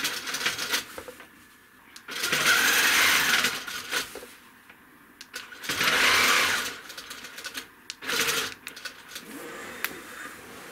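Handi Quilter longarm quilting machine stitching in several short runs of a few seconds each, stopping and starting with small clicks in between.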